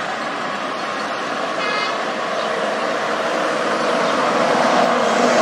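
Highway traffic passing: a steady noise of road vehicles, with one short horn toot about two seconds in. Near the end a bus's engine grows louder as it approaches.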